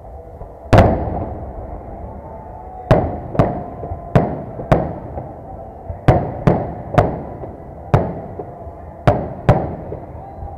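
Victory Day fireworks salute: about a dozen sharp bangs of shells bursting at irregular intervals, the first and loudest about a second in, each trailing off in a short echo.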